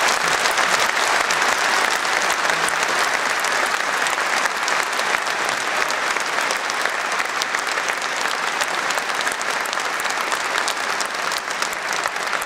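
Audience applauding steadily, a dense patter of many hands clapping that eases off slightly toward the end.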